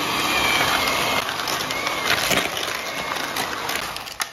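Electric hand mixer running steadily, its beaters creaming butter and sugar in a plastic bowl. The motor stops just before the end.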